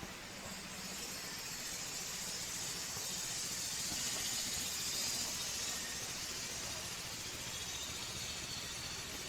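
2017 Honda CBR250RR parallel-twin engine running through a Yoshimura aftermarket silencer, with an even low exhaust pulse and a hiss that swells a little in the middle, then eases back.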